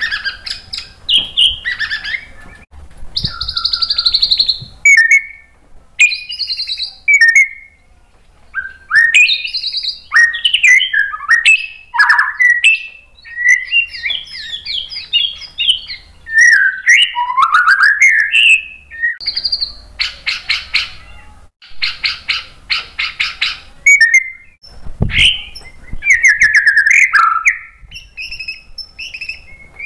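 Male white-rumped shama singing loudly: a long, varied song of short whistled phrases with rising and falling slurs, broken by short pauses, and fast rattling runs of rapid repeated notes about two-thirds of the way through.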